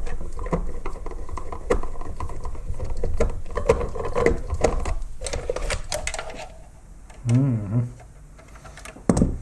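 Small electric screwdriver running with rapid clicking as screws are backed out of a plastic blower housing, stopping after about six seconds. A short wavering low hum follows, then a sharp click near the end.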